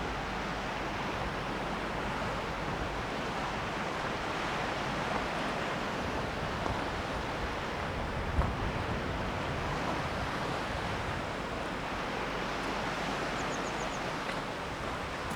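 Strong wind blowing steadily, with an occasional gust buffeting the microphone in a low rumble.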